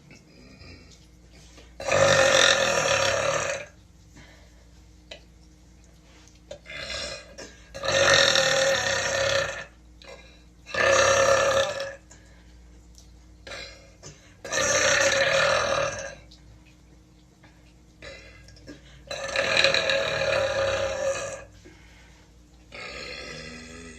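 A woman letting out a series of loud, bassy burps: five long ones lasting one to two seconds each, with a few shorter, quieter burps between them.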